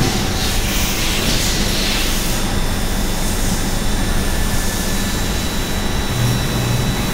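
S33 5-axis vertical machining center running with coolant flowing over the workpiece: a steady mechanical hum with thin high tones and a hiss that swells now and then.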